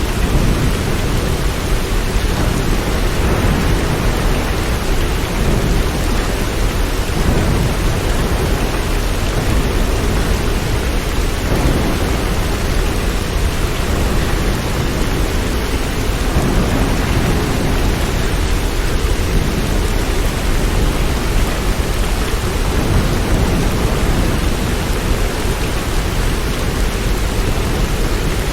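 Steady heavy rain, an even hiss of falling water with a deep, continuous rumble underneath that swells a little now and then.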